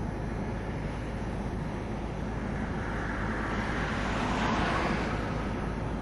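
Steady low rumble heard from inside a standing car, with a rushing swell that builds and fades about three to five seconds in.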